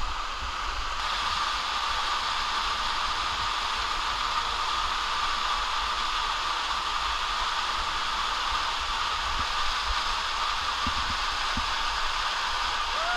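Steady rush of a large waterfall pouring down beside the rock ledge, with a few faint low knocks in the last few seconds.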